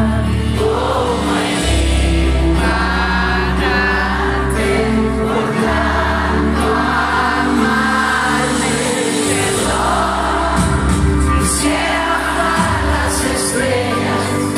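Live pop ballad played by a band with deep sustained bass notes, and singing carried by many voices together like a choir, heard from within the concert audience.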